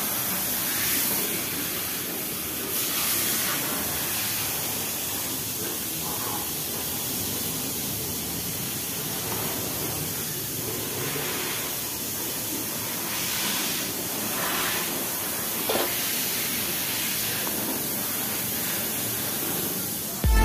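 Steady hissing background noise with a few faint, soft knocks and rustles scattered through it.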